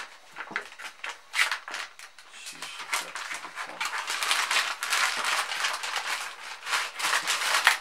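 Plastic flameless ration heater bag and foil food pouch crinkling and rustling as they are handled, a food pouch being slid into the heater bag, with irregular crackles.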